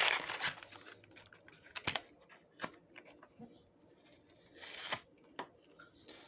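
Packaging being handled: a rustle at the start, then scattered small clicks and crinkles, and a longer rustle about four and a half seconds in, as a boxed model car is worked free.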